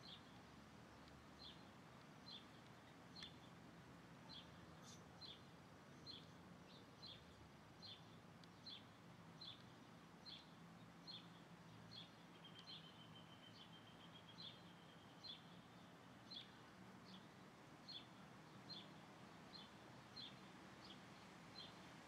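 A small bird chirping faintly and repeatedly, a short high chirp roughly once a second. About halfway through, a short trill runs for a couple of seconds.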